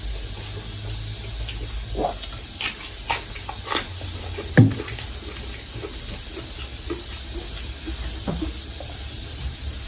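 A person eating and chewing a meatball: a few short wet clicks and smacks over a low steady hum and hiss, the loudest about four and a half seconds in.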